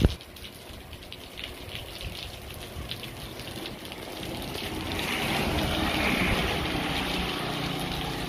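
Steady rain falling on a paved road and sidewalk. About halfway through, the hiss of vehicle tyres on the wet road swells as traffic approaches. There is a sharp click at the very start.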